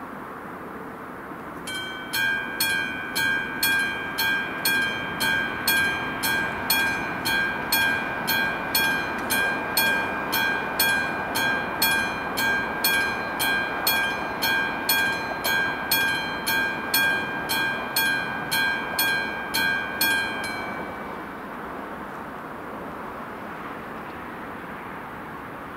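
Classic mechanical level-crossing bell on an AŽD 71 warning signal ringing with about two strikes a second, each strike leaving a ringing tone; it starts about two seconds in and stops about twenty seconds in. Throughout there is a steady background noise.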